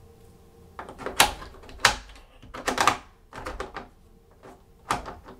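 A plastic bit holder and steel screwdriver bits clicking and knocking against the hard plastic insert of a tool case as they are handled and pressed into place: about five sharp clicks spread over a few seconds.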